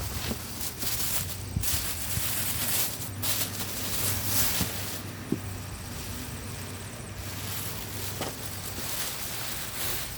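Cardboard and plastic packaging rustling and scraping as it is handled and pulled away, in uneven surges with a few light knocks.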